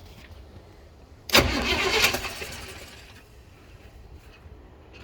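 Chevy Blazer engine cranked by its starter through a temporarily wired 5-pin relay: a loud burst of about a second that starts suddenly a little over a second in and then fades away. This is a test showing that the relay energizes the starter.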